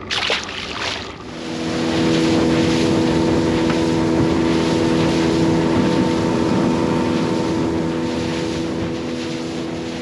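A fishing boat's motor comes up to speed about a second in and then runs at a steady pitch while the boat travels, with wind and the rush of water. A few brief sharp sounds come just before it.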